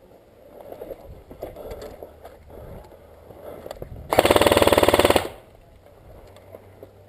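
Airsoft rifle firing one full-auto burst of about a second, a fast even rattle of shots, very close and loud. It comes a few seconds after some faint scuffs and knocks of movement.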